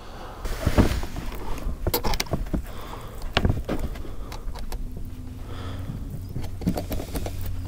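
Several sharp knocks and thuds over a low steady rumble, the loudest about a second and about three and a half seconds in.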